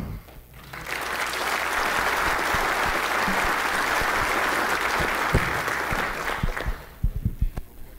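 Audience applauding after a talk, starting about a second in, holding steady and dying away near the end.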